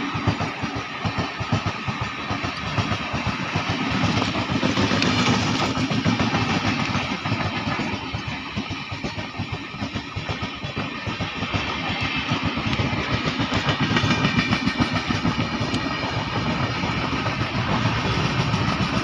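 Express train running on the track: a steady rumble with a rapid, dense clatter of wheels over the rails.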